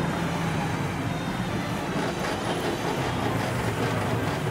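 RICCAR 987 portable sewing machine running at a steady speed, sewing the second step of its four-step buttonhole, with the even rapid clatter of its needle mechanism.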